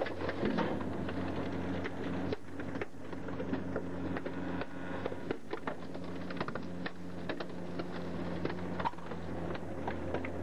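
Leach rear-loader garbage truck running steadily with a low hum while its packer crushes a bicycle and plastic toys in the hopper, giving many sharp, irregular cracks and clicks of breaking plastic and debris.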